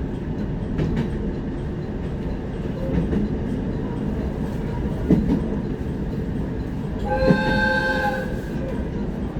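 Passenger train running, heard from inside the carriage: a steady rumble with wind noise and a few thumps from the wheels. About seven seconds in, a pitched tone with several overtones sounds for about a second.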